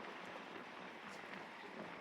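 Light rain beginning to fall: a faint, steady patter with scattered drop ticks.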